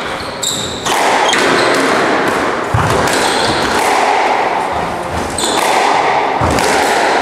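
Squash rally: the ball knocking off the walls and rackets several times, with low thuds and brief high squeaks of court shoes on the wooden floor.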